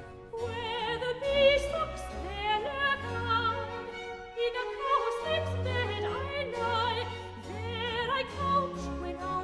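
Soprano voice singing with vibrato over a small baroque string orchestra.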